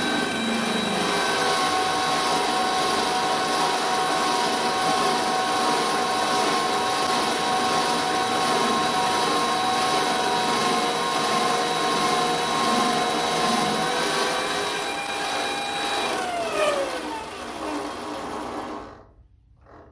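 Vevor 8x14 mini lathe running a test cut on round stock: a steady motor and gear whine over the hiss of the cut. About 16 seconds in, the lathe is switched off, and the whine falls in pitch and fades as the spindle spins down.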